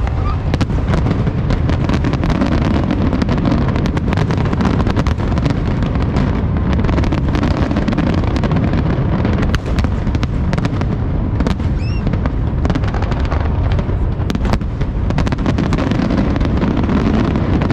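Dense, continuous fireworks: a steady rumble of booms with rapid crackling pops throughout, and a short whistle about twelve seconds in.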